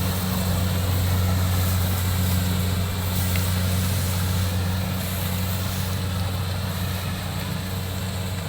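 Rice combine harvester's engine running steadily with a deep, even drone, slowly growing a little fainter toward the end.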